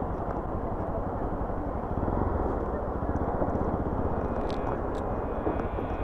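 Motorbike engine running steadily under way, a low pulsing rumble mixed with road and wind noise, with two light clicks a little past the middle.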